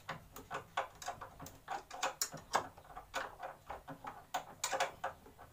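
Irregular light clicks and knocks, several a second, from hand tools working on a plywood wall cabinet.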